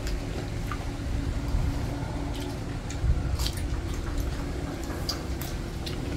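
People eating a meal: chewing, with scattered light clicks of utensils against bowls, over a steady low rumble.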